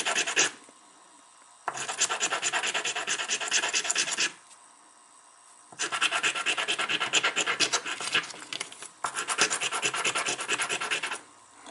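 Hand sanding of a small cut piece of brass tube: quick back-and-forth scratching strokes, about five or six a second, in three bouts with short pauses between.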